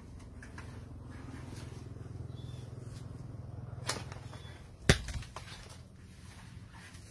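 A green papaya, knocked off the tree with a long pole, drops and hits the ground with one sharp, loud thud about five seconds in, after a lighter knock a second earlier as the pole strikes the fruit. A low steady hum runs underneath.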